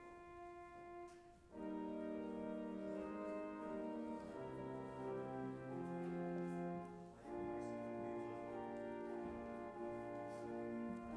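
Church organ playing slow, sustained chords, soft at first and swelling fuller about a second and a half in, with the chord changing again a little past the halfway point.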